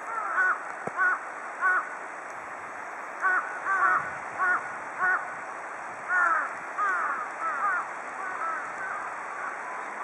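A group of large-billed crows (jungle crows) calling over and over in short caws. Some calls come singly and some in quick overlapping runs from several birds.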